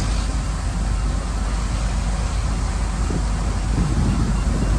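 Shantui bulldozer's diesel engine running steadily with a deep rumble, mixed with wind noise on the microphone.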